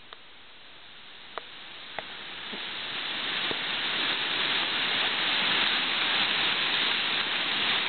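Rushing river rapids, a steady hiss of white water that grows steadily louder. A few short clicks come in the first couple of seconds.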